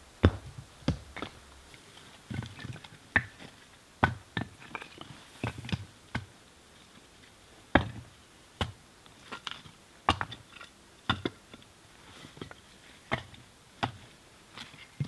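Split firewood pieces knocking together as they are handled and stacked: irregular sharp wooden knocks, about one or two a second.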